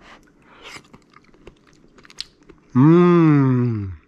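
A man blowing on a spoonful of hot curry gravy and tasting it with small mouth clicks, then a long appreciative "mmm" hum near the end that sinks in pitch as it fades.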